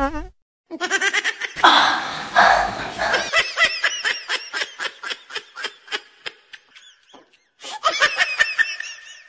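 Laughter: a fast run of high-pitched ha-ha-ha pulses that slows and fades, with a noisy rasping stretch under it about two seconds in, then a second short burst of laughing near the end.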